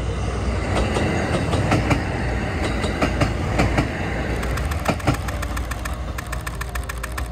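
Kishin Line two-car diesel railcar running past and away: a low rumble of engine and wheels that slowly fades, with wheel clicks over the rail joints.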